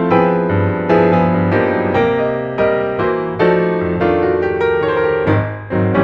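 Background piano music: a slow melody of single struck notes, each fading before the next.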